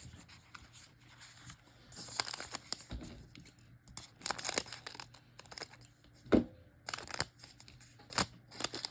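Trading-card handling: a foil card pack crinkling and cards sliding and rustling against each other in short scratchy bursts, with one sharp tap about six seconds in.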